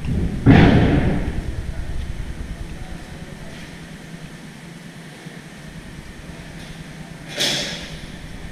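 Two loud bangs, one about half a second in and a sharper, higher one near the end, each ringing out for about a second in a large echoing boatbuilding shed.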